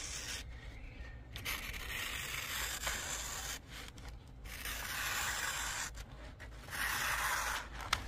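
Böker TechTool 1 pocket knife's 12C27 steel blade slicing through a sheet of printer paper, in several strokes of a second or two each with short pauses between.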